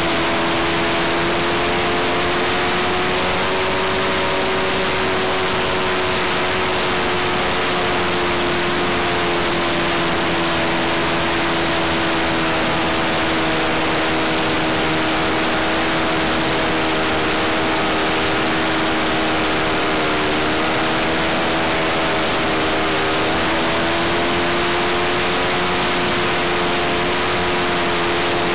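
OS 95 glow engine of a Great Planes Cosmic Wind model racer running steadily in flight, heard from an onboard camera over a constant hiss of air. Its pitch sags briefly about twenty seconds in and climbs back a few seconds later.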